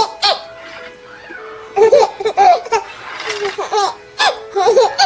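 Two babies laughing at each other in repeated short bursts of giggles, with background music underneath.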